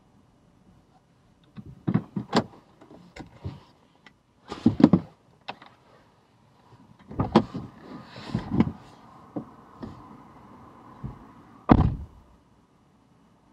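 A driver getting out of a parked car: a run of clicks, knocks and rustles as things are handled and the door is opened, then the car door shutting with a solid thump near the end, the loudest sound.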